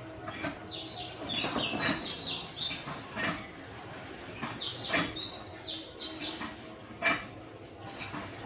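Birds chirping in two bursts of quick, high, falling chirps, with scattered short clicks in between.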